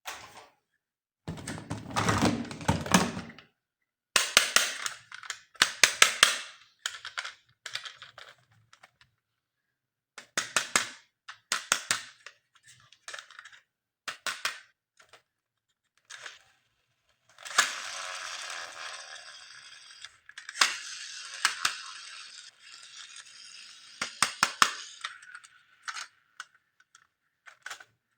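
Toy packaging and hard plastic toy parts being handled: irregular clicks and taps mixed with short rustles. About 17 seconds in there is a longer stretch of steady crinkling or rustling that lasts several seconds.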